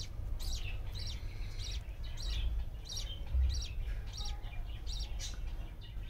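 Budgerigars chirping: a run of short, high chirps repeated about twice a second, over a low background rumble.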